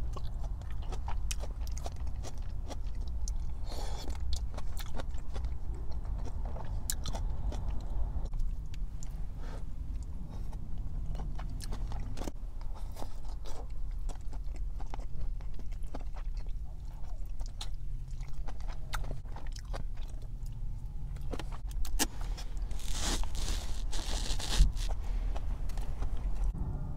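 Close-miked eating: wet chewing and crunchy bites of fried chicken, with many small clicks and a few longer crackling crunches, over a steady low hum.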